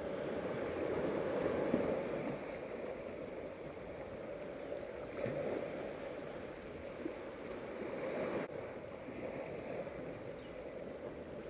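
Steady beach ambience: the wash of sea waves and wind, a constant rushing noise.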